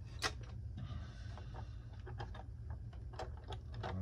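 Scattered light clicks and taps of plastic as a toy train locomotive and its coal tender are handled and fitted together on a table.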